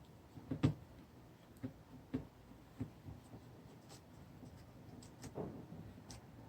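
Light clicks and taps from handling a laptop LCD panel and its small screws and parts during a screen replacement: about half a dozen scattered knocks, the loudest about half a second in.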